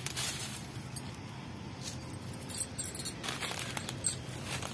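Leaves and dry vine stems rustling as hands handle the plants, with bangles on the wrists clinking in a few short jingles, mostly in the second half.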